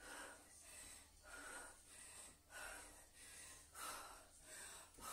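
Faint, quick, heavy breathing of a woman straining through press-ups, breath after breath in an even rhythm: out of breath from hard exercise.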